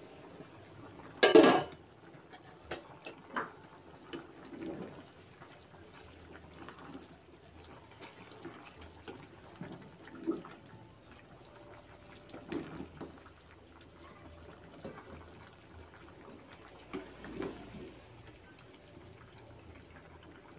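An aluminium pot lid clanks loudly as it is lifted off about a second in. Then a spatula stirs thick creamy macaroni soup in the pot, with soft scrapes and liquid sloshing every second or two.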